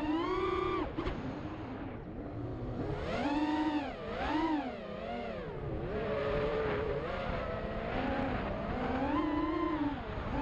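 FPV racing quadcopter's brushless motors and propellers whining, the pitch rising and falling over and over as the throttle is worked through the flight.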